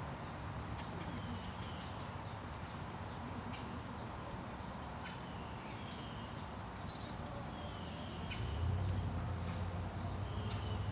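Rural outdoor ambience: birds giving scattered short, high chirps and calls over a steady background hiss, with a low hum coming up about eight seconds in.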